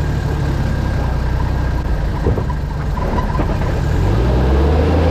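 Diesel four-wheel-drive engine running steadily, with a single knock about two seconds in; near the end the revs rise and it gets louder as the vehicle pulls away.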